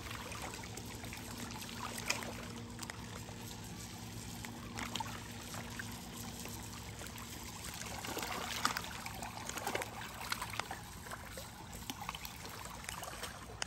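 Lake water lapping and trickling at the shore, with small splashes scattered through it.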